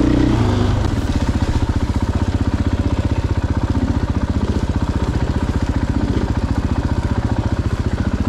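Single-cylinder four-stroke dirt bike engine, a Husqvarna FE450, running at low revs with a steady, even beat.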